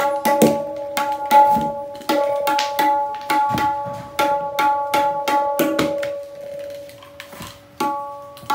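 Tabla dayan, the right-hand drum, struck repeatedly with the fingers: each stroke rings with the same clear, steady pitch, as the maker tests the note while tuning it with a small hammer. The strokes pause for about a second and a half after six seconds, then start again near the end.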